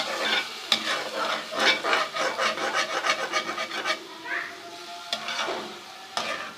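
A spoon scraping and stirring through beef liver frying with tomato paste in a pan, in quick repeated strokes about three a second, which slow to a few separate strokes near the end.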